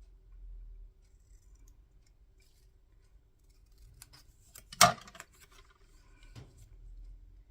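Scissors snipping paper: a few faint snips around four seconds in, then one sharp, loud snip just before five seconds, and a softer one later.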